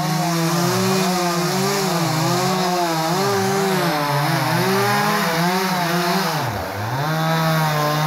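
Two-stroke chainsaw running under load while bucking a felled pine trunk into rounds, its engine pitch wavering up and down as the chain cuts. About six and a half seconds in it bogs down sharply, then picks back up.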